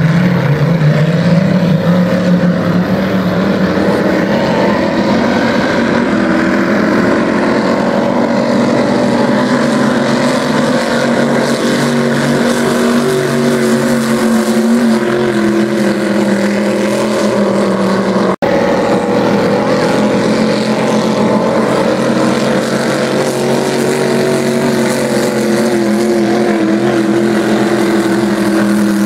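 Several vintage racing hydroplanes' big-block engines running hard through open exhausts, their pitches drifting slowly up and down as the boats pass. The sound cuts out for an instant about 18 seconds in.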